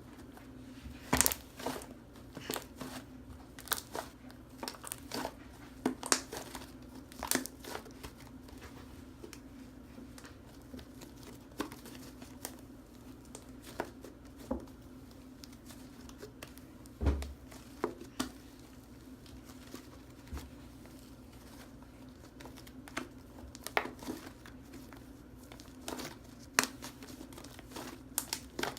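Fluffy slime made from glue and shaving foam being squished and stretched by hand, giving irregular crackling pops and clicks.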